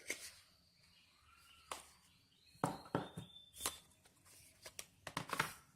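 Phone box and its contents being handled: scattered sharp clicks, taps and short rustles of cardboard and plastic packaging.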